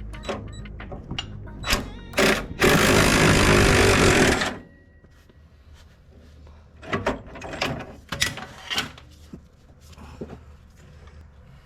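A power tool runs in one loud burst of about two seconds, among scattered clinks and knocks of tools and metal parts being handled.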